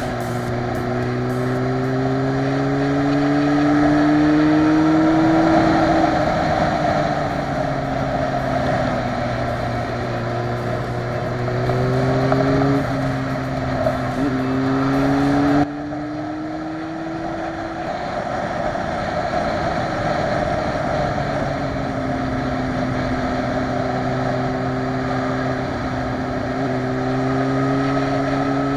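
Motorcycle engine under way on a twisty road, its pitch climbing under acceleration and falling back as the rider eases off for the bends, over steady rushing wind. The level drops suddenly about halfway through, then the engine runs lower and steadier before rising again near the end.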